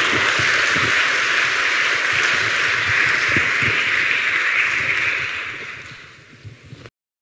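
Audience applauding, fading out near the end and then cutting off abruptly.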